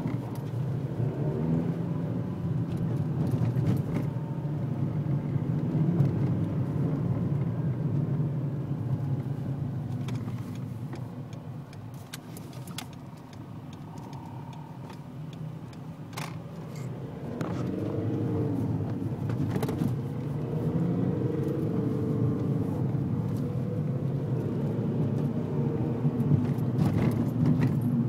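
Volkswagen-group TDI turbodiesel car engine accelerating, making a strange noise alongside the engine. The engine note climbs in pitch in two pulls, easing off for a few seconds in the middle.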